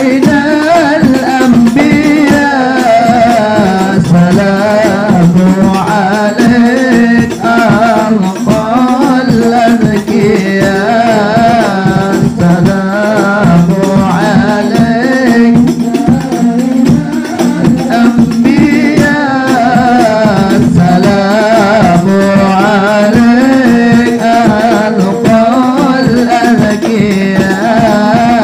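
Sholawat, Arabic devotional singing in praise of the Prophet, sung over a steady, busy beat of hand-struck rebana frame drums whose rim jingles add a rattle.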